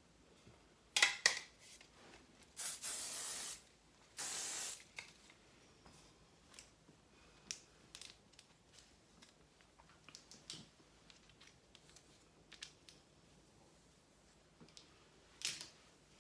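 Aerosol hair-product can sprayed in two bursts, one of about a second and then a shorter one, with small clicks and handling sounds of hair tools around them.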